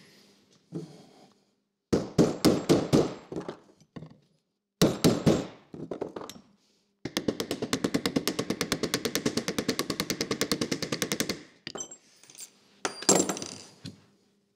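Metal-on-metal peening of a sprung Maserati V8 engine mount's end: a few quick runs of hammer blows, then about four seconds of fast, even strikes at roughly ten a second, and a couple of last knocks near the end.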